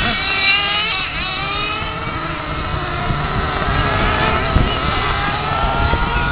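Radio-controlled model car driving on asphalt, its small motor whining high, the pitch falling and rising as it slows and speeds up.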